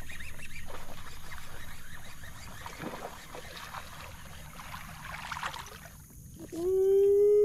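Water splashing and sloshing around a kayak while a hooked bass is fought on a topwater lure, with scattered small ticks and knocks. Near the end, one long drawn-out shout, held at a steady pitch for about a second.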